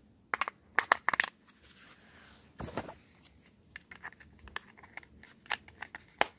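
Batteries being fitted into a remote control's battery compartment: a scatter of short, sharp plastic clicks and taps, irregularly spaced, the loudest cluster about a second in.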